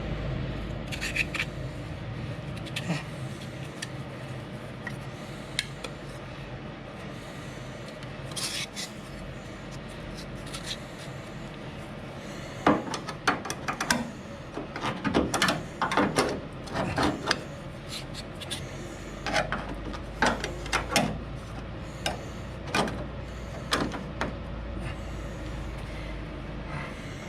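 Loose metal parts being handled and fitted by hand: scattered knocks, clinks and rubbing, busiest in the second half.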